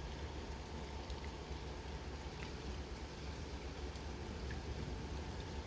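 Steady rain falling during a thunderstorm, with a few faint scattered drop ticks.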